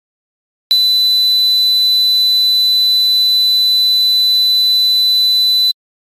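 Synthesised 4 kHz triangle-wave tone: a steady, high-pitched ringing that starts abruptly just under a second in, holds for about five seconds and cuts off sharply. It is played as an example of how tinnitus ringing sounds.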